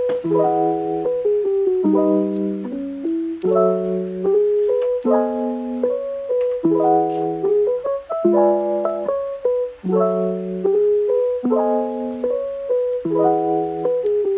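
Background music: a lo-fi electric piano playing soft chords in a repeating pattern, changing chord about every second and a half.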